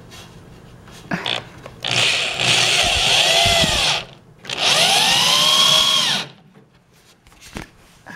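Power drill driving screws into pallet wood, in two runs of about two seconds each with a short pause between, the motor's pitch wavering under load.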